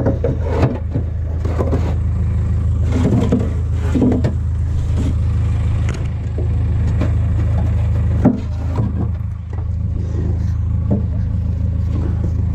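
A heavy machine's engine running steadily with a low drone, with scattered clanks and knocks over it, one sharper knock about eight seconds in.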